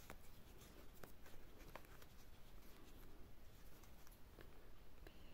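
Faint scratching and a few small clicks of a metal crochet hook pulling yarn through crocheted fabric as single crochet stitches join an arm to the body.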